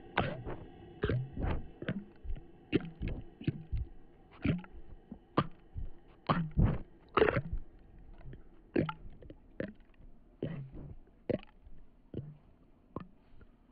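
Eerie horror-style ambient soundtrack: a faint steady drone with short low sounds at irregular intervals, one or two a second, the loudest about seven seconds in.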